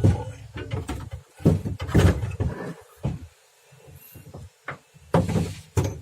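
Metal clunks, knocks and scraping in three bursts as the unbolted steering gearbox of a 1992 Mitsubishi L300 is worked free and lifted out.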